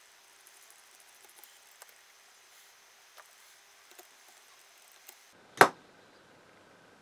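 Faint scattered ticks and scrapes of a very small flathead screwdriver working tiny screws loose on an air rifle's metal action. One sharp, louder click comes a little over five seconds in.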